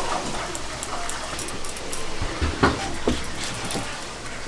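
Busy kitchen clatter over a steady background din, with a sharp knock about two and a half seconds in and another about half a second later.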